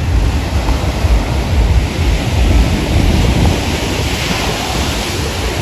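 Sea surf breaking and washing up the beach, with wind buffeting the microphone in a gusting low rumble. The hiss of a wave washing in swells about four seconds in.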